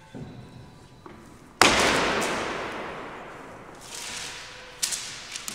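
A sudden loud crash about a second and a half in that dies away slowly over a couple of seconds. Later a sheaf of papers flung into the air rustles, followed by a sharp tap near the end.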